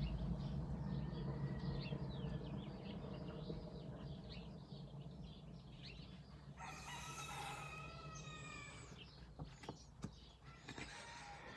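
A rooster crowing once, about seven seconds in, with small birds chirping and a low background rumble that fades away.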